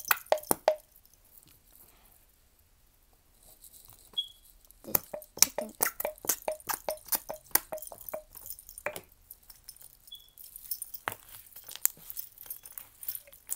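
Homemade slime being worked by hand with a small plastic squeeze bottle pressed over it: a run of short clicks and wet pops, about two to three a second, after a quiet first few seconds.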